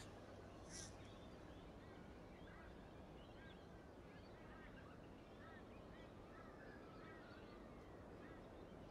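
Near silence: quiet room tone with faint, scattered bird chirps in the background and a brief soft hiss just under a second in.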